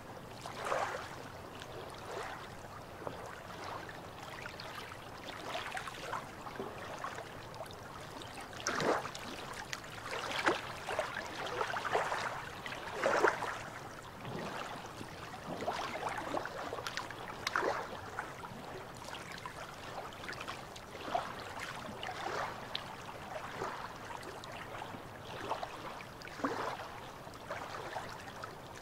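Calm sea water lapping and splashing irregularly against shoreline rocks, with soft splashes every second or so and a run of louder ones in the middle.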